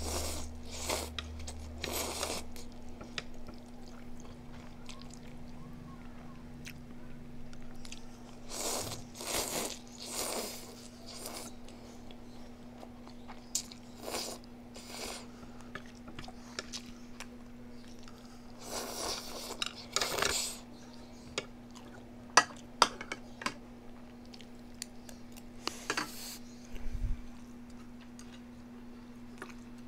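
Close-up eating sounds: food being bitten and chewed with loud crunches in several bursts separated by pauses. A few sharp clicks come in between, over a steady low hum.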